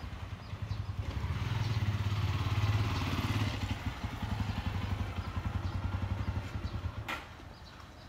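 A motor vehicle's engine running as it passes, growing loudest about three seconds in and fading away near the end.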